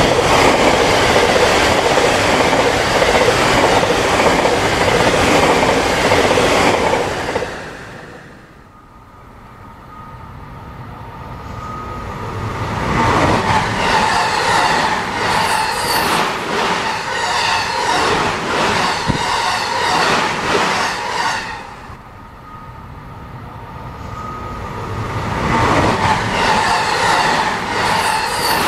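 N-gauge model train, a mixed 225-100 and 223-2000 series EMU formation, running on layout track: a motor whine with rapid, regular clicking of the wheels over rail joints. It swells as the train passes close and fades away twice, about 8 s and about 22 s in.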